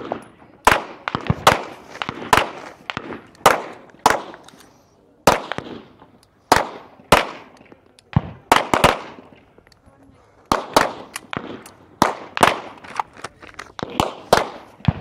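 Gunfire from several shooters on a firing line: sharp, irregular shots, about two a second, each trailing off briefly, with a short lull near the middle.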